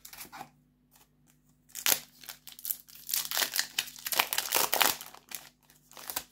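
A Yu-Gi-Oh! trading-card booster pack's foil wrapper crinkling and tearing as it is ripped open. There is a sharp rip about two seconds in, then a few seconds of continuous crinkling.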